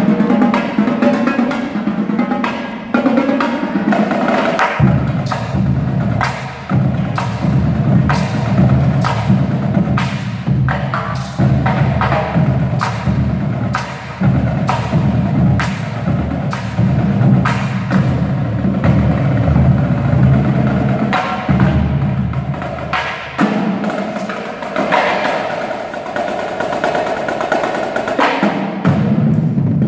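Percussion ensemble playing: rapid sharp stick clicks and drum strokes, with a low sustained pitched part entering about five seconds in, dropping out near the end and coming back.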